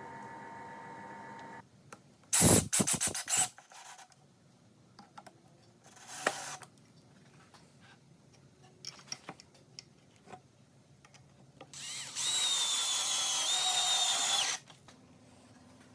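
A power drill runs for about two and a half seconds near the end, its whine dipping briefly under load as if driving a screw. Earlier, a steady hum stops about one and a half seconds in, followed by a few loud clattering knocks.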